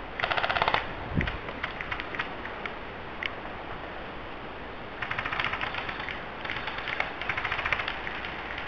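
Airsoft guns firing full-auto bursts of rapid clicking shots: a short burst at the start, then two longer bursts about five and six and a half seconds in, with scattered single shots between.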